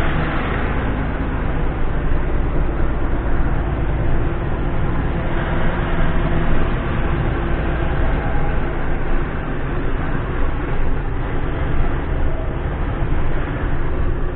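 Loaded concrete mixer truck running steadily, its diesel engine pulling a full drum of concrete up a steep grade.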